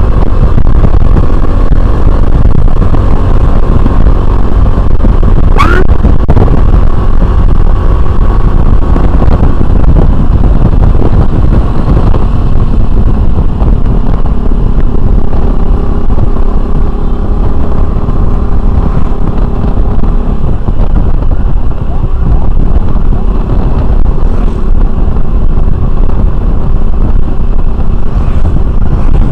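Steady wind rush and rumble on the microphone from a Honda Revo FI motorcycle riding at speed, with its engine running underneath. A brief rising chirp comes about six seconds in.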